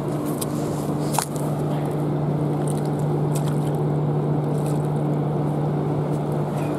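Steady low engine-like hum with a few faint ticks, and one short high chirp falling in pitch about a second in.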